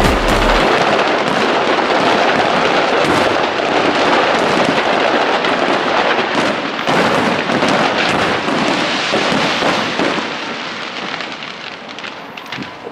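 Dense crackling of fireworks: a rapid, continuous string of small bangs and crackles that fades away over the last few seconds.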